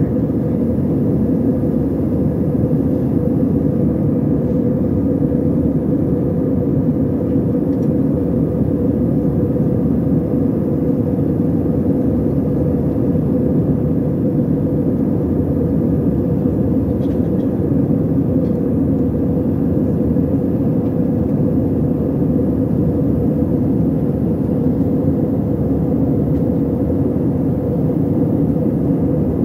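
Steady engine and airflow noise inside the cabin of an Airbus A320-family airliner in flight, an even low rush with a faint steady hum that does not change.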